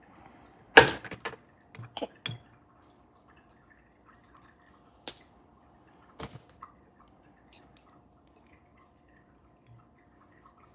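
Small metal parts of a Mul-T-Lock Interactive lock clicking and knocking as the lock is taken apart by hand. The loudest clack comes about a second in, followed by a few quieter clicks spread over the next several seconds.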